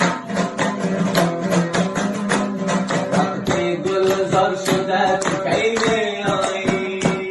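Afghan mahali folk music: a dambura, the two-stringed Afghan lute, strummed in a fast, even rhythm, with a melody line that moves up and down over it.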